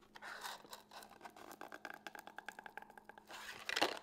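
Plastic sushi-roll maker handled on a countertop: a fast run of small plastic clicks and rattles, then a louder scrape near the end as the plastic sheet is worked around the mould.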